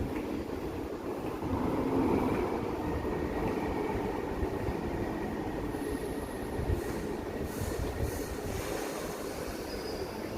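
London Underground train running through a nearby platform or tunnel: a steady rumble that swells about two seconds in, with a faint high wheel squeal.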